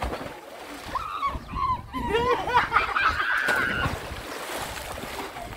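Children shrieking and shouting while playing in a swimming pool, with water splashing as one jumps in about four seconds in.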